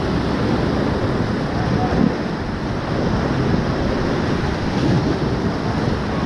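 Whitewater rapids rushing and churning around an inflatable raft: a steady, loud rush of water.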